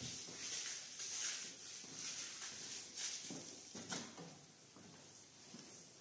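Faint, scattered knocks and shuffling footsteps of someone moving about a workshop, settling into near-quiet room tone in the last two seconds.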